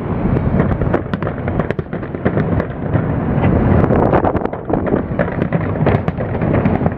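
Fireworks display: a dense run of overlapping bangs and crackling pops over a continuous rumble.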